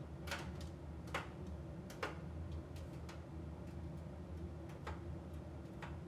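AEG heat pump tumble dryer running in its drying phase: a steady low hum from the motor and heat pump, with irregular light clicks and taps as the tumbling load knocks against the drum. The sharpest clicks come in the first two seconds.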